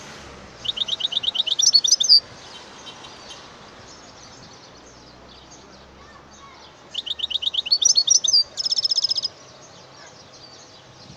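European goldfinch singing two song phrases, about five seconds apart. Each opens with a quick run of repeated high notes, about ten a second, and breaks into a jumbled twitter; the second ends in a short, fast trill on one pitch.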